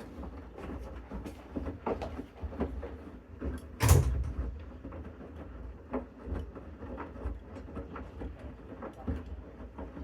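Low steady rumble of a Bosch Series 6 washing machine running its main wash, with scattered small clicks and knocks and one loud knock about four seconds in.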